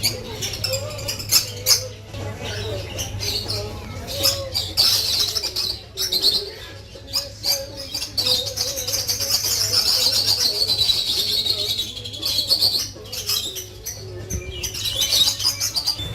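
Many caged birds calling together, with a dense chatter of high chirps over lower cooing calls, a steady low hum beneath and scattered clicks.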